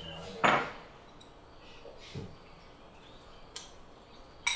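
A spoon clinking lightly against a cereal bowl, with a short loud rustling burst about half a second in and a soft thud near the middle.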